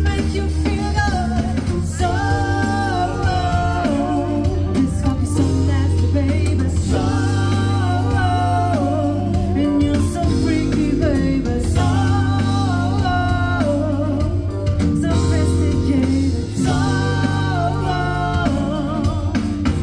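Live band music with a steady bass line under repeated melody phrases that come every couple of seconds.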